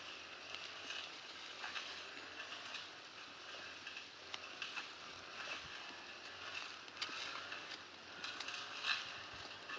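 Small wood fire of twigs and dry leaves crackling, with irregular snaps and rustling of dry sticks and leaf litter as they are handled and fed into the flames.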